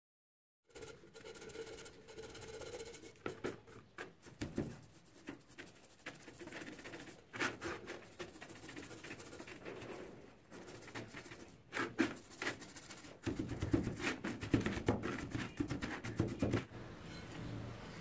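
Crusty black coating being scraped and chipped off a rusty metal fan part with a hand tool: irregular scratching with sharp clicks and knocks, starting about a second in and getting heavier near the end.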